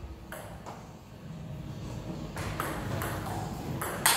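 Table tennis ball striking the bats and the table during a point: a handful of sharp ticks spaced unevenly, the loudest near the end.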